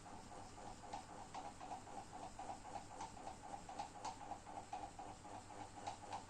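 GMC FC-06-90 mini ceiling fan running with extended blades: a faint whir that pulses about five times a second, with a few faint ticks.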